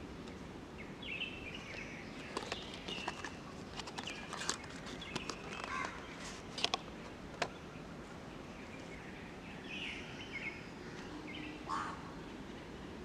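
Faint outdoor background with scattered bird chirps. Several light clicks and rustles come from the cardboard perfume box and bottle being handled, mostly in the middle of the stretch.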